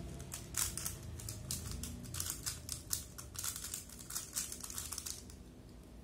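3x3 plastic speed cube being turned rapidly by hand, its layers clicking and rattling in quick irregular runs. The turning dies away about five seconds in.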